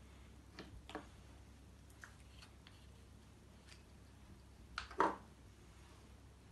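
Light clicks and taps of small plastic colour bottles and cups being handled. A sharper double knock about five seconds in is the loudest sound.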